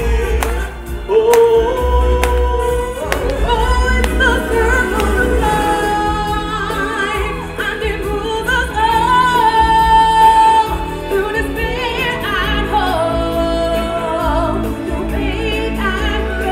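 Live stage-show music with a group of singers in choir-like harmony over a backing with a steady low bass and some percussion.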